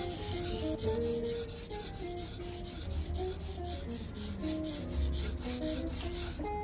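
Knife blade being rubbed back and forth on a whetstone in many quick, even strokes: a gritty rasping scrape of steel on stone that stops shortly before the end. Guitar music plays underneath.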